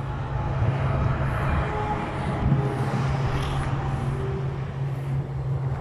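Flatbed tow truck's engine idling with a steady low hum, under a hiss of outdoor noise.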